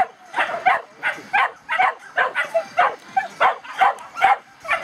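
A dog barking rapidly and steadily, about three sharp barks a second without a pause.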